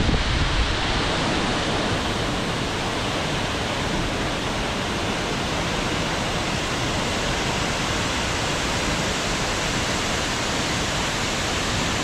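Tall waterfall pouring down a steep rock face: a steady, even rush of falling water.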